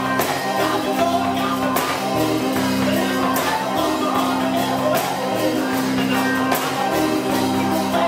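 A live band plays: organ bass notes are played on foot pedals and held, changing every second or so, over drums with sharp cymbal or tambourine hits on a steady beat.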